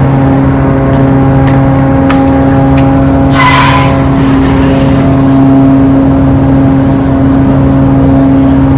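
Ferry's engines droning steadily, a low hum with a rumble underneath, with a brief hiss about three and a half seconds in.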